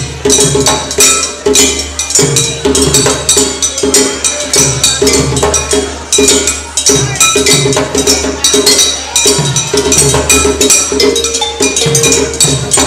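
Djembe hand drums and other percussion played together in a fast, steady rhythm, with ringing struck tones over the drum beats.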